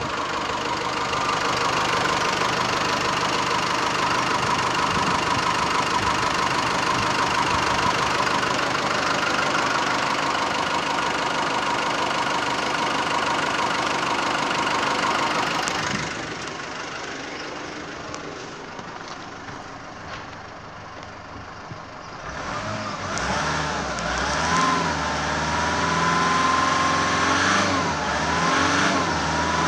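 2008 Nissan Navara D40's 2.5-litre four-cylinder turbo diesel running steadily with the bonnet open. About halfway through it turns quieter and muffled, heard from inside the cab, and near the end it is revved up and down several times, to just under 3000 rpm.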